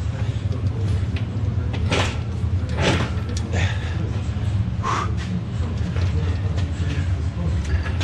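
Shop crane being rolled across a concrete floor with a tractor gearbox hanging from its chain: a steady low rumble with several knocks and clanks, and a short squeak about five seconds in.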